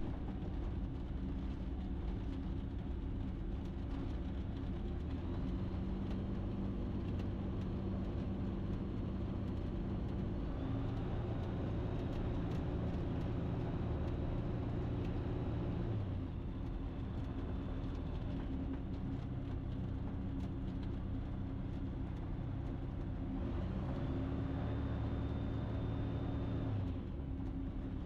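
Ikarus C42 microlight's engine running at low power on the ground, heard from the cockpit; its speed rises and falls a few times as the throttle is moved.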